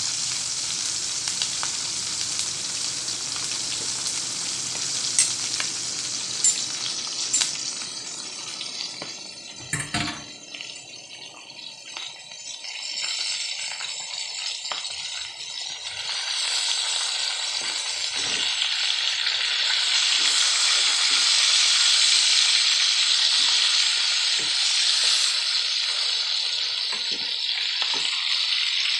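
A pot of chicken sinigang at a rolling boil on a gas stove, the broth bubbling and hissing as foam rises on it. A dull knock comes about ten seconds in, and the bubbling grows louder in the second half.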